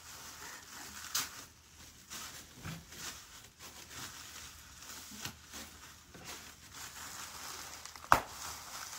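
Packing material crinkling and rustling as it is handled and crumpled by hand, with one sharp snap about eight seconds in.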